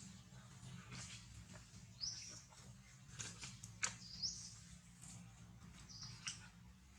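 Short, high-pitched animal squeaks, about three of them, each rising quickly in pitch, with a few faint clicks between them.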